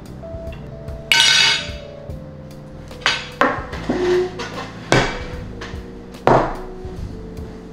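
Dishes set down on a table: a loud clatter with ringing about a second in, then several sharp knocks as a plate and a wooden bowl are put down. Quiet background music with held notes plays underneath.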